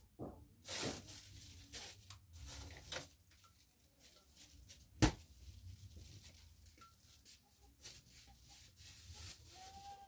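A spatula scraping a thick ground-chicken mixture out of a blender jar in several noisy strokes, with one sharp knock about five seconds in as the jar is tapped.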